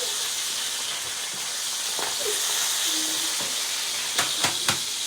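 Bacon sizzling steadily in a frying pan, with a few sharp clicks near the end.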